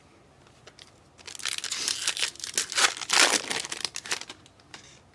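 Crinkling and tearing of a foil trading-card pack wrapper, likely as a pack is ripped open, for about three seconds starting about a second in.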